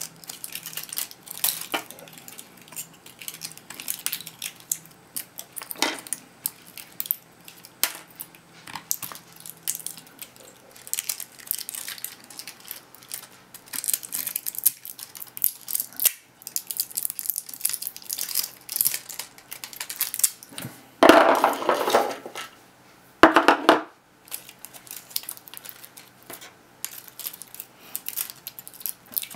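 Pliers working the spot-welded nickel strips off Sony US18650GR G5 lithium-ion cells: a steady string of small metallic clicks, scrapes and snaps, with two louder rasping stretches about 21 and 23 seconds in.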